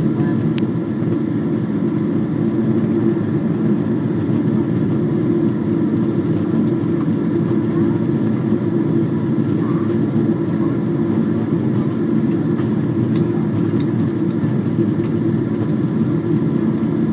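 Airliner cabin noise on the landing approach: a low, steady roar of jet engines and rushing air heard from a seat by the window.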